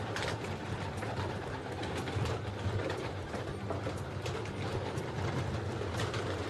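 A flock of homing pigeons cooing together in a dense, continuous murmur, with scattered sharp clicks among them.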